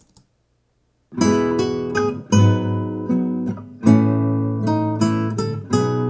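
Recorded acoustic guitar strumming chords, played back with an equalizer boosting the lows around 100 Hz and the highs around 6 and 12 kHz. It comes in about a second in after a brief silence, with heavy chord strikes every second or two.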